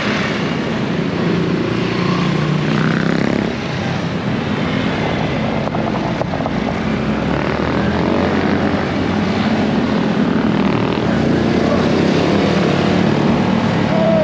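Small single-cylinder four-stroke Honda motorcycle engine running steadily as the bike rides along, with wind rush over the microphone.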